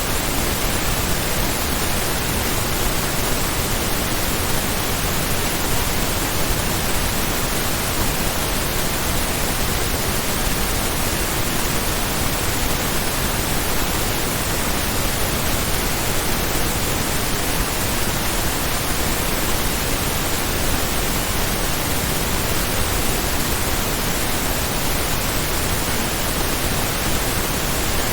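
Steady pink noise test signal in true stereo, mastered to −14 LUFS with a −1 dB peak: an even, unchanging hiss across the whole range.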